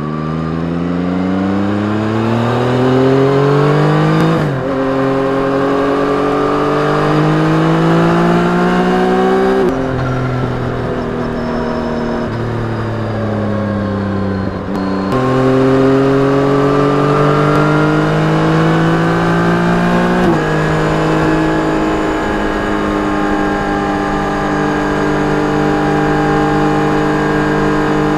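A 2021 Yamaha MT-09's 890 cc three-cylinder engine through its stock exhaust while riding. Rising revs are broken by sharp drops at upshifts about four and a half and ten seconds in. After a stretch of falling revs, the revs jump back up about fifteen seconds in, step down once more around twenty seconds, and settle into a steady cruise.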